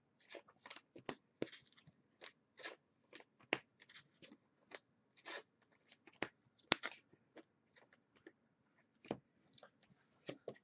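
Faint, irregular crinkling and clicking of football trading cards and their foil pack wrappers being handled and opened by hand, with many short sharp snaps throughout.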